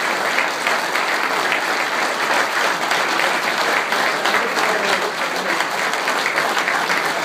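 Audience applauding steadily in a banquet room, many hands clapping at once, with a little cheering and talk mixed in.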